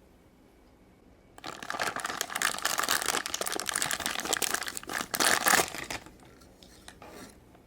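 Plastic parts bag crinkling and rustling as it is handled and opened. It starts about a second and a half in, runs for some four seconds as a dense crackle of quick clicks, and stops.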